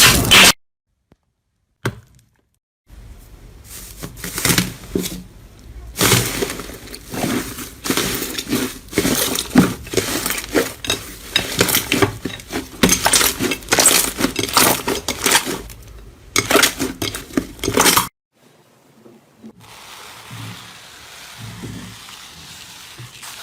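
Crisp crunching and crackling: many sharp clicks and cracks as a brittle, crunchy material is pressed and crushed by hand. It breaks off after about 15 seconds and returns faint and softer near the end.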